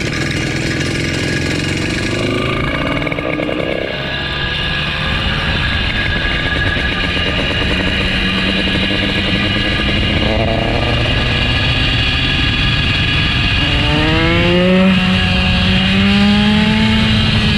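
Small 79cc RDM Piaggio engine on a motorized bicycle, running under way. Its pitch rises as it revs up about ten seconds in, and again in the last few seconds.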